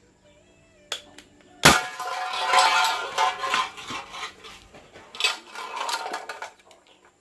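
A single sharp bang, likely a homemade PVC spirit gun firing, about two seconds in. It is followed by several seconds of loud, uneven clattering and rattling that dies away near the end.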